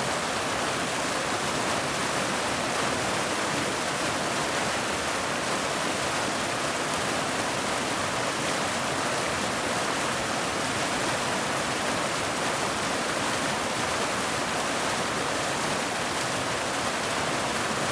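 River water flowing in a steady, even rush with no breaks or changes.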